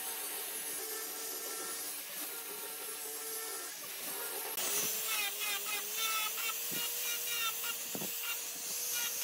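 Angle grinder running with a steady motor whine while it sands wood, the scratchy hiss of abrasive on wood over it. First the grinder turns a sanding drum against a curved wooden piece. About halfway through the sound changes as a grinder with a sanding disc pad takes over, giving a brighter, more rasping sanding noise.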